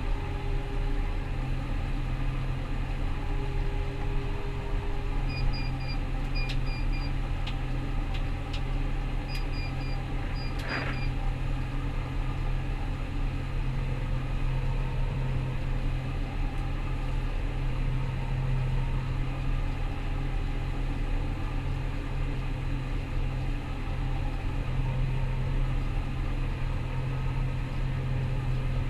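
Rostselmash Vector 425 combine harvester running steadily, heard from the cab as a low, even engine and machinery drone. Between about 5 and 11 seconds in come a few short, high electronic double beeps and some light clicks.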